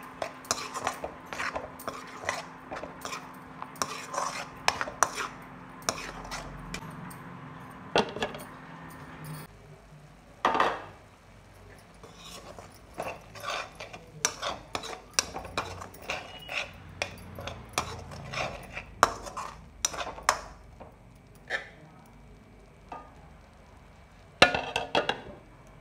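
Perforated steel spatula scraping and clinking against a kadhai while stirring a thick tomato-chilli masala as it fries, in short, irregular strokes.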